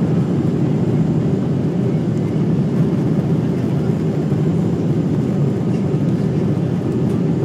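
Boeing 737 jet engines and rushing air at takeoff power: a steady low rumble that holds even, without rising or falling.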